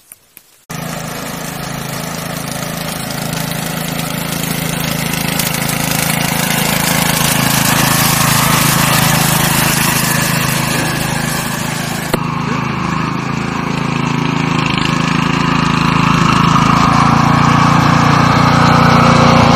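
Riding lawn mower's engine running steadily as it drives along a wet road. The sound starts suddenly about a second in and slowly grows louder, dipping briefly about twelve seconds in.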